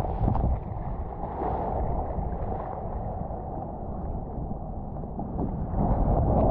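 Strong offshore wind buffeting the microphone over the rushing wash of surf, steady and a little louder near the end.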